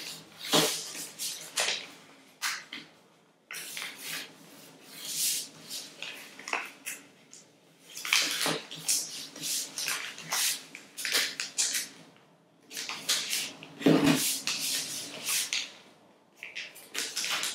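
Sheets of paper being folded and creased by hand for an origami piece, crinkling and rustling in irregular bursts with short pauses between folds. A few heavier thuds stand out, the loudest about 14 seconds in.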